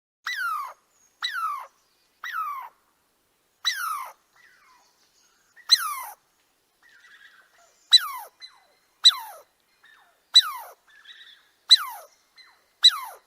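A squirrel calling with a run of about ten short barks, each falling quickly in pitch, spaced about a second apart with a longer pause midway; the later barks start more sharply.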